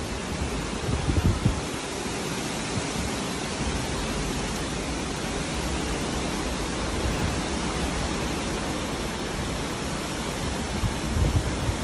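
Hurricane rain pouring and wind blowing as a steady rushing noise, with low buffets on the microphone about a second in and again near the end.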